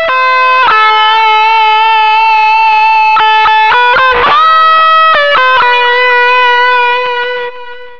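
Instrumental intro music: held notes that step to a new pitch every second or so, with a quick sweep about four seconds in. It fades out near the end.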